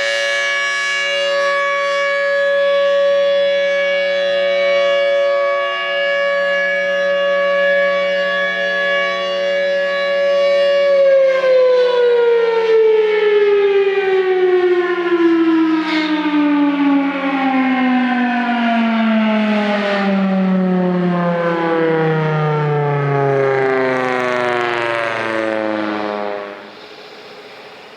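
Federal Signal Thunderbolt 1003 outdoor warning siren sounding a steady chord-like tone, then winding down after it is shut off, its pitch falling steadily for about fifteen seconds before the sound drops away sharply near the end.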